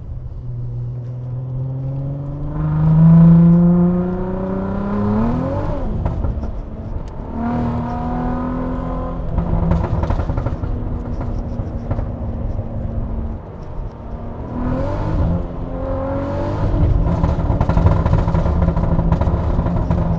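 Turbocharged 3.2-litre VR6 engine of a Mk IV VW GTI pulling hard under acceleration. The revs climb for about five seconds, break at a gear change and climb again, then hold steadier before another short pull and a loud steady run.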